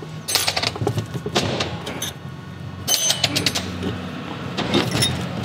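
Metal clanks and clinks with short ringing as a Toyota differential carrier, ring gear and bearings attached, is worked loose and lifted out of its third-member housing; several separate knocks, the busiest run of ringing clinks about three seconds in.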